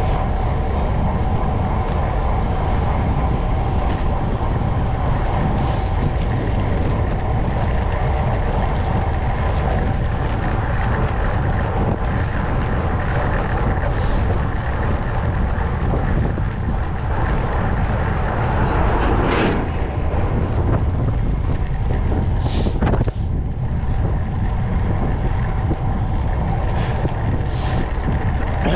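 Wind rushing over the microphone of a camera on a moving road bike, together with the bike's tyres rolling on tarmac: a steady, loud rush. A few brief knocks come about two-thirds of the way through.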